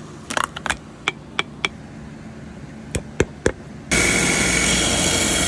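Sharp clicks and snaps from pincers gripping and prying at a boot heel, about ten scattered through the first few seconds. About four seconds in, a shoe finishing machine's sanding wheel sets in with a steady, loud sanding noise as the boot's rubber is pressed against it.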